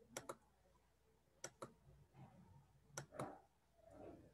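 Faint computer mouse clicks, three quick double clicks about a second and a half apart, advancing presentation slides.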